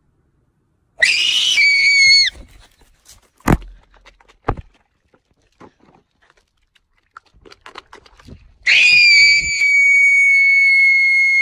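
A voice screaming, high and shrill, for about a second, with the pitch dropping as it breaks off. Two sharp knocks follow, then near the end a second long, held scream.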